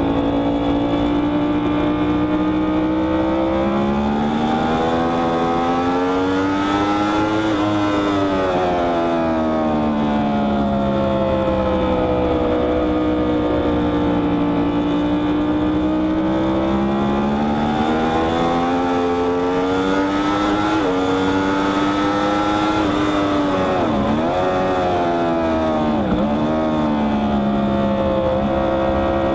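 Yamaha R1's crossplane inline-four running hard on track, heard from a camera mounted on the bike. Its pitch climbs slowly, falls away, then climbs again, with a sharp break about 21 seconds in and two quick dips near the end, over steady wind rush.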